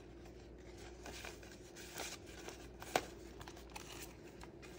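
Paper banknotes rustling faintly as they are handled and counted by hand, with a sharp click about three seconds in.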